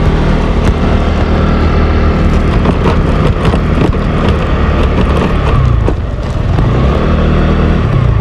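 Motorbike engine running under way, loud and close, over a steady rushing noise. The engine note falls about five and a half seconds in and climbs again near the end as the bike slows and picks up speed.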